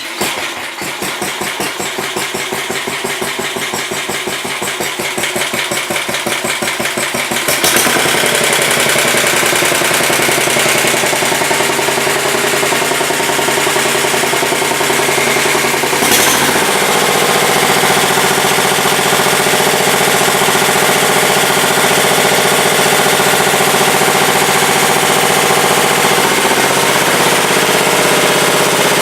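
Sears Suburban 10 garden tractor engine running with an even chugging beat, then speeding up and running steadier and louder about seven and a half seconds in, with a sharp click about sixteen seconds in. It is held at about working speed while the generator's charging is checked; the owner suspects it needs more revs than this to charge the battery.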